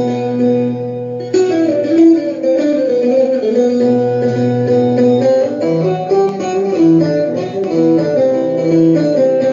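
Instrumental introduction of a Moroccan 'groups'-style song, before the vocals enter. It has a melody of held notes over a steady bass line, and the accompaniment fills out fully about a second in.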